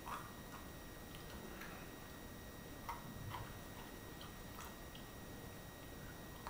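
Faint, irregular small clicks and crackles of peanut shells being cracked open by hand, with quiet chewing.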